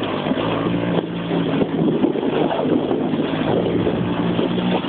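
Moped engine running at a steady speed while towing, under a continuous hiss of the towed Trabant door sliding over snow and wind on the microphone.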